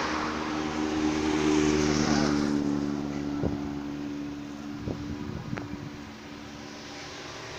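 Motorcycle engine passing close by, loudest about a second and a half in and then fading away. A few sharp knocks follow.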